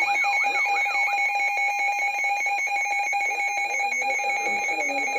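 NOAA Weather Radio alert tone: a loud, steady electronic alarm tone, with a siren-like warble sweeping up and down about three times a second over it for the first second. A faint voice can be heard underneath toward the end.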